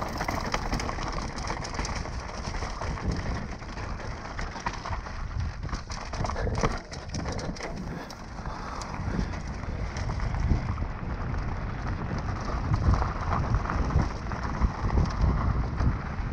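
Mountain bike descending a forest singletrack: tyres crunching over rocks and dirt, with many short rattles and clicks from the bike. Wind rumbles on the camera microphone, growing stronger in the second half as the trail smooths out and speed picks up.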